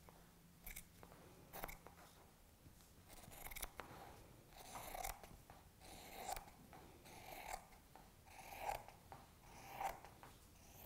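Scissors cutting straight along a length of striped fabric: a faint, regular series of snips, roughly one a second.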